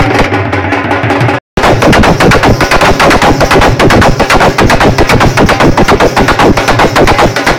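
Loud dance music with fast, dense drumming, distorted and overloading the recording. The sound cuts out for a moment about a second and a half in, then resumes.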